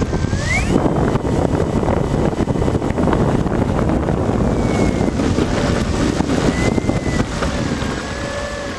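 Wind rushing over a GoPro camera's microphone on a moving vehicle, with a thin motor whine that rises sharply in pitch about half a second in and then slides slowly lower.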